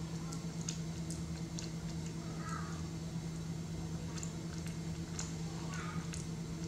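A baby macaque chewing food taken from a spoon: faint scattered clicks and smacks over a steady low hum.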